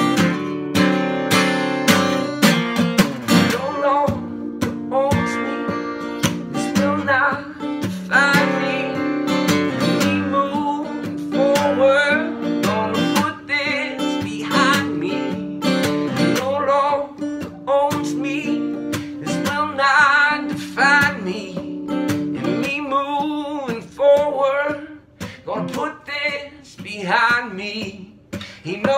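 Acoustic guitar strummed steadily while a man sings over it, his voice coming in a few seconds in.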